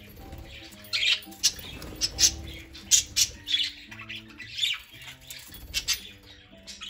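Budgerigars giving short, sharp squawks and chirps, several in quick runs, while they feed at a seed treat.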